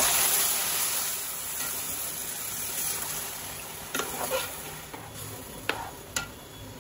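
Tamarind juice sizzling as it hits the hot oil and onion paste in a steel pot: a loud hiss at the start that fades over several seconds. In the second half there are three light clinks of a spoon against the pot.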